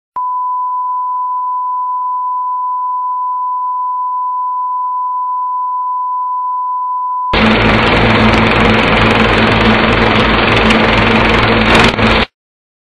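Broadcast test tone played with colour bars: a steady, single-pitched beep, which about seven seconds in gives way to a louder burst of static-like hiss that stops abruptly some five seconds later.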